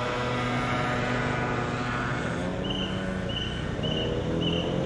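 Small motor scooter engines running as the scooters approach, with one engine's pitch rising near the end. A short high chirp repeats about twice a second through the second half.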